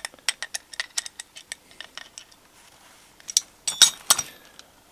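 Small metal clicks and clinks as brass tap parts are unscrewed and handled: a quick run of light clicks, then a few louder clinks about three and a half seconds in.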